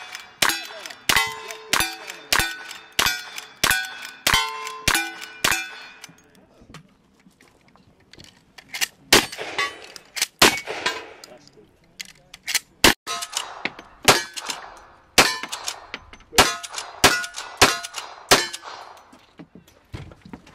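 A quick string of about ten rifle shots, a little over half a second apart, each followed by the ring of a struck steel target. After a pause of about three seconds, another string of shots and steel rings follows.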